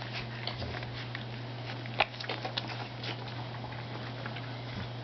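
Puppies slurping: an irregular run of small wet clicks and smacks, the sharpest about two seconds in, over a steady low hum.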